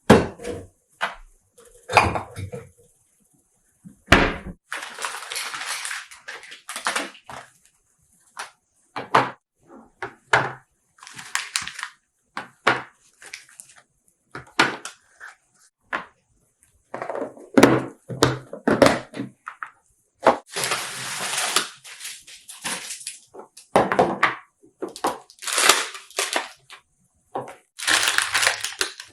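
Hands handling household items: irregular crinkling rustles, like plastic packaging, and short knocks of things being set down, in bursts with short pauses between.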